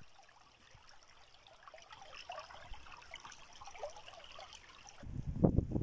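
Small forest stream faintly trickling and babbling over stones and fallen logs. About five seconds in, a much louder, rough, low rumbling noise starts abruptly.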